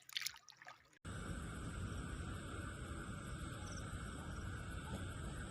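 Steady chorus of insects, starting suddenly about a second in, with a low rumble underneath.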